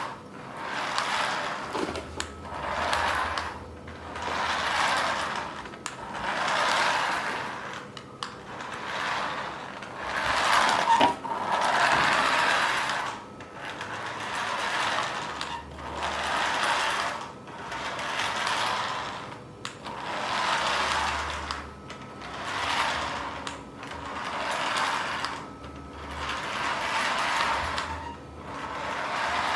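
Toy remote-control car's small electric motor and plastic gears whirring in even surges, each swelling and fading over about two seconds, with a sharp click about eleven seconds in.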